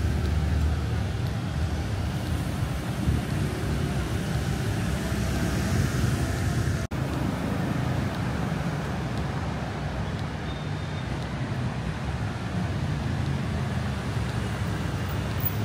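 Steady road traffic noise, vehicles running close by. It cuts out for an instant about seven seconds in, then carries on.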